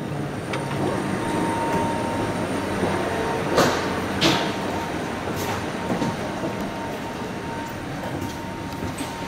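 Footsteps in an enclosed jet bridge over a steady mechanical drone with a faint high whine. A few sharp steps stand out, two a little after a third of the way in and a couple more past halfway.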